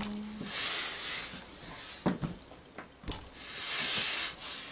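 Steam iron hissing as it releases two long bursts of steam onto fabric, each over a second long, with a couple of short knocks between them.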